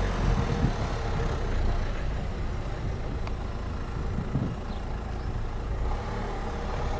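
A car engine idling: a low, steady rumble.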